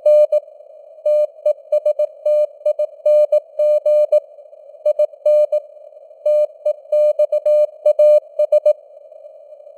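Morse code at 18 words per minute: a single mid-pitched beep keyed on and off in short and long pulses (dots and dashes) over a narrow hiss of simulated radio noise. The sending stops near the end, leaving only the hiss.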